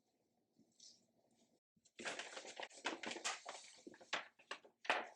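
Quiet room tone, then about two seconds in a run of irregular rustling and knocking from things being handled.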